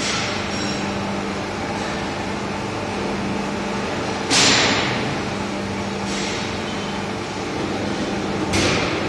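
Electric chain hoist running steadily with a mechanical hum as it lifts its hook, with two sharp knocks, one about four seconds in and one near the end.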